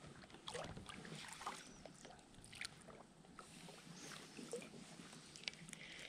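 Faint rustling with scattered light clicks and knocks as an angler handles a spinning rod and reel in a plastic kayak.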